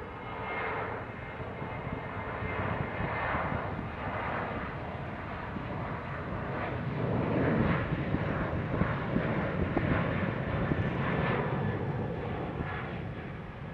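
Jet engines of an AnadoluJet Boeing 737 at take-off thrust, a steady roar that swells to its loudest a little past the middle as the airliner accelerates down the runway and rotates for lift-off.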